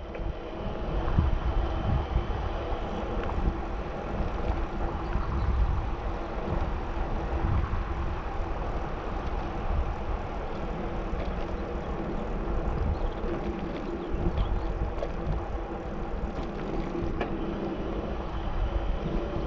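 Riding a bicycle on an asphalt path: wind buffeting the action camera's microphone with an uneven low rumble, over the steady hum of the tyres rolling.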